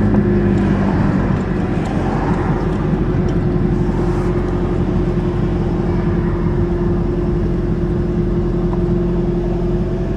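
Car engine and road noise while cruising at a steady speed, a continuous hum whose pitch holds level. The car is an Aries wagon towing a loaded trailer.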